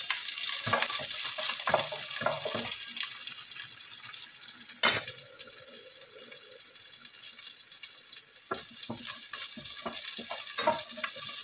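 Chopped garlic sizzling in hot oil in a nonstick pot, a steady hiss, with a wooden spatula knocking and scraping against the pot as it is stirred; one sharper knock about five seconds in.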